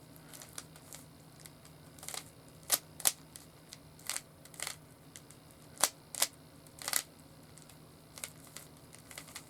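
A plastic Rubik's Cube being twisted by hand, giving irregular sharp clicks, about a dozen, the loudest between two and seven seconds in.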